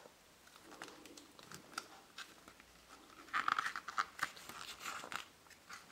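Pages of a small hardcover book being handled and turned: soft paper rustling and little clicks, with a louder burst of crinkling for about a second a little past halfway as the page turns over.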